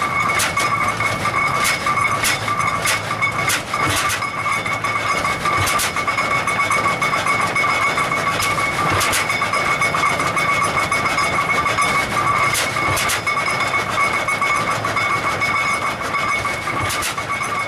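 The 1908 Hart-Parr 30-60's big two-cylinder engine running, with sharp beats at uneven intervals over a steady mechanical din.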